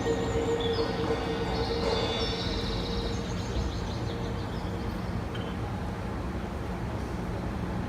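Steady low rumble, with a held tone and high chirps that fade out in the first few seconds.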